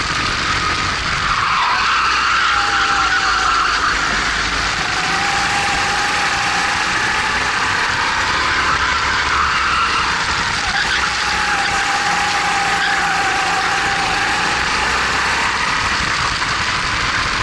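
Racing kart's Honda GX270 single-cylinder four-stroke engine running hard at race speed, heard from the driver's seat; its pitch dips and climbs back a few times as the revs fall and rise.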